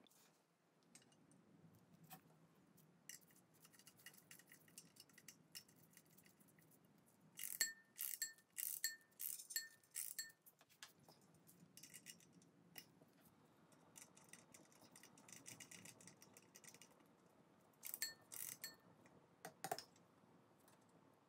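Brass case and works of an antique Eugène Farcot conical pendulum clock being handled: scattered light clicks, then a quick run of sharp metallic taps with a short ring about halfway through, and a few more taps near the end.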